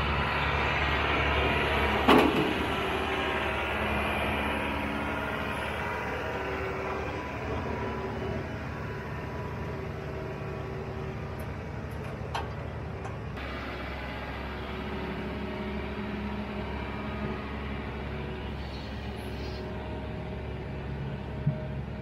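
Diesel engine of heavy farm equipment running steadily, with a sharp metallic knock about two seconds in.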